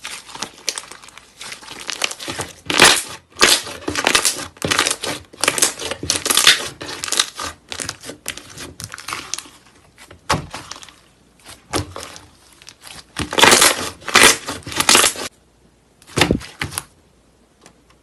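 Slime being worked by hand, making repeated bursts of crinkling, crackling sound with short pauses between them.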